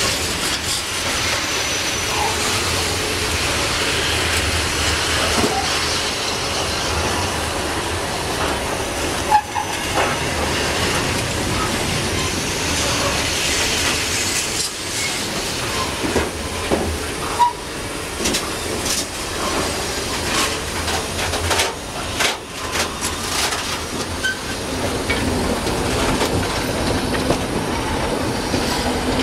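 Freight wagons rolling past close by: a steady rush of steel wheels on rail, with irregular sharp clacks over the rail joints, thickest in the second half. Near the end a diesel-electric locomotive comes alongside, and a low steady engine note joins in.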